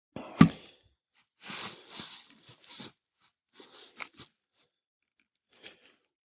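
A sharp knock about half a second in, then a few short bouts of crunching and scuffing: footsteps and handling in the debris around a large cut oak log.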